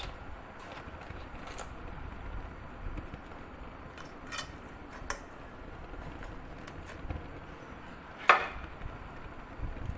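A few scattered clicks and knocks of objects being handled, the loudest a sharp knock about eight seconds in, over a low steady background hum.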